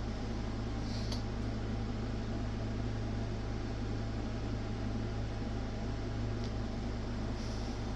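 Steady low hum with background hiss, with a few faint short clicks about a second in and again near the end.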